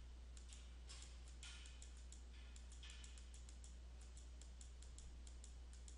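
Faint computer mouse clicks, about two to three a second, stepping a graphing-calculator emulator's trace cursor to the right, over a steady low hum.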